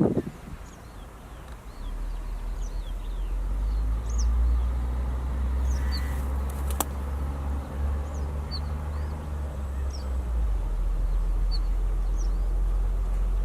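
Short, thin, high bird calls repeated every second or so, over a steady low rumble; a single sharp click about seven seconds in.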